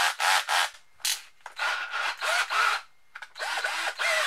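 Arsenal DA-18AH 18 V cordless drill-driver run in a series of short bursts on repeated trigger pulls, its whine rising and falling as it speeds up and slows down. It runs properly on a replacement 18 V motor from another drill, with the pinion gear swapped over.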